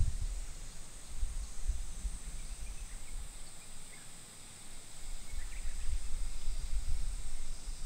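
Outdoor summer ambience: a steady high drone of insects with a few faint bird chirps, and wind gusting on the microphone as an uneven low rumble.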